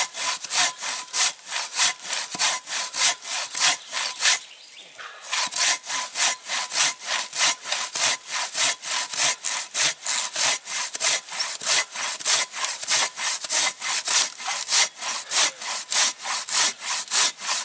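Silky Katanaboy 500 folding saw cutting through a thick pine trunk in long, fast, even back-and-forth strokes, with a short pause about four seconds in.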